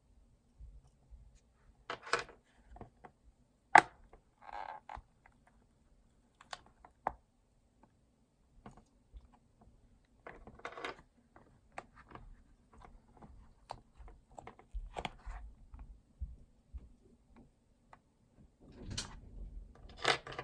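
Handling noises of small hard objects: scattered clicks, taps and short scrapes, the loudest a sharp click about four seconds in, with a busier cluster of scraping near the end.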